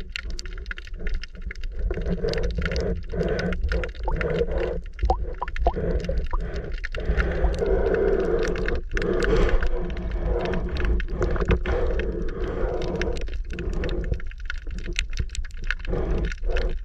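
Underwater ambience picked up by a camera in shallow sea: a steady low rumble of moving water with many scattered sharp clicks and crackles throughout.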